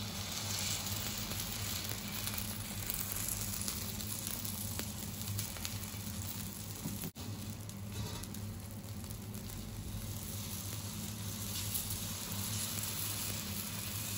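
Fermented cornmeal batter sizzling in hot oil as ladlefuls are spooned into an iron wok, frying into small flat cakes. The sizzle is steady, breaking off for an instant about halfway through.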